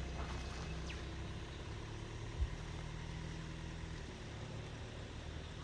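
A four-wheel-drive vehicle's engine idling with a steady low hum, with a single short knock a little over two seconds in.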